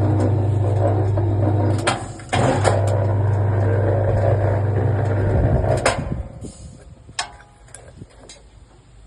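Rebar bending machine running with a steady deep hum from its motor, with sharp knocks about two seconds in and near six seconds. The hum breaks off briefly around two seconds, then stops about six seconds in, leaving a few scattered clicks.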